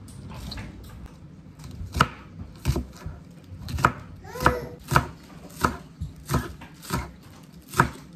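Chef's knife chopping spring onions on a wooden cutting board: a steady series of sharp chops, about one and a half a second, starting about two seconds in.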